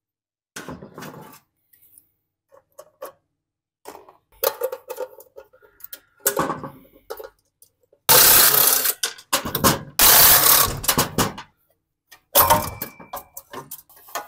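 Hand tools clicking and clattering against the engine as its linkage and shroud are worked loose, with two loud rushing noises about a second long each near the middle and more clatter near the end.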